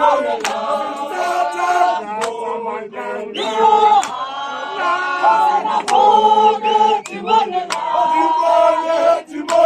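A group of people singing a chant-like song together in unison, with men's voices prominent.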